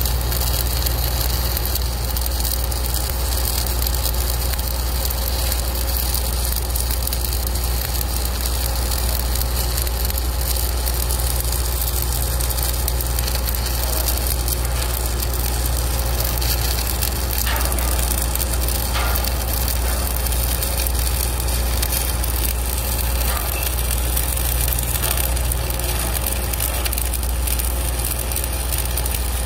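Stick-welding arc from a 1/8-inch Lincoln Excalibur 7018 rod at about 126 amps, crackling and sizzling steadily as a bead is run on a steel angle clip. A steady low hum runs underneath.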